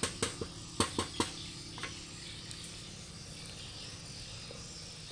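About five sharp taps as a hand knocks on the painted steel frame of an engine stand, all in the first two seconds, followed by a low steady background hum.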